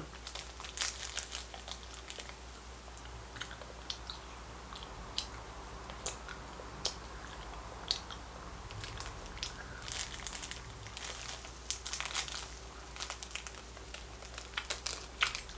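Faint crinkling of a plastic candy wrapper being handled, mixed with small crunching and chewing clicks from eating a hard candy; scattered short clicks, more of them in the last few seconds.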